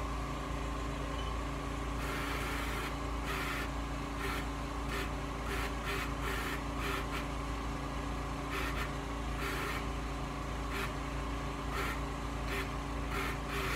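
Autohelm 4000 wheel-drive autopilot's electric drive motor running in auto mode: a steady hum broken by many short, irregular bursts as the motor drives the wheel.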